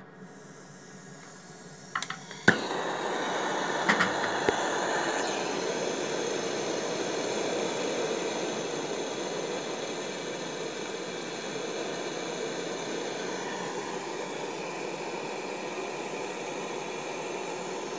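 A few sharp clicks about two seconds in as the DIY brass case annealer is started, then a propane torch flame burning with a steady hiss while the machine runs.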